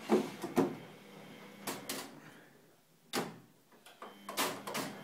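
A washing machine being handled: a series of short, sharp plastic clacks and knocks, about seven, spaced irregularly.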